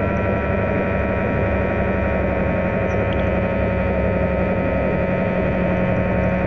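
Genesis 600 underwater scooter (diver propulsion vehicle) running underwater: a steady, loud motor whine of several held tones over a low hum.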